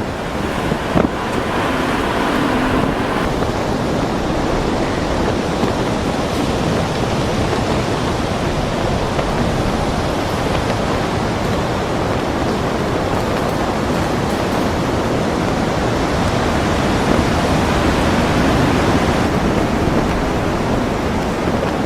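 Pacific Ocean storm surf: heavy waves breaking and rushing in a continuous loud roar of water, with wind buffeting the microphone.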